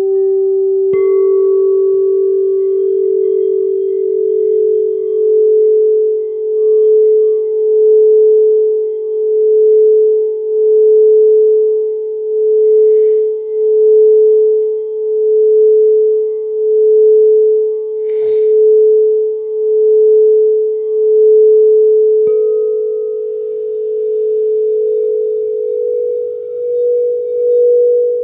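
Singing bowls ringing in one long sustained tone that swells and fades in a slow wobble, about once every second and a half. Another bowl is struck about a second in, and again around 22 seconds in, the second strike lifting the pitch slightly. A single sharp click sounds around 18 seconds in.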